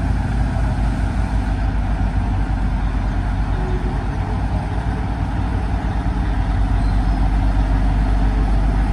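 Small diesel shunting locomotive's engine running with a steady low throb as the locomotive moves slowly, growing a little louder in the second half as it draws closer.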